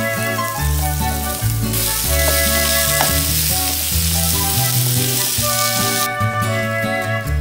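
Onion, garlic, ginger and squash cubes sizzling in hot oil in a wok, over steady background music. The sizzle grows louder about two seconds in and drops away about six seconds in.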